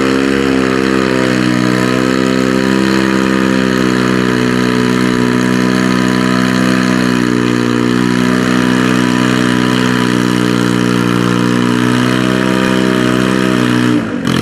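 Farm pulling tractor's diesel engine running loud and steady under load on a pull, its pitch wavering slightly. It drops off sharply near the end.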